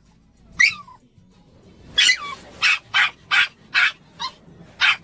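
Maltese barking in short, sharp barks: one just after half a second in, then a quick run of seven from about two seconds on, a little over two a second. These are anxious barks after its owner.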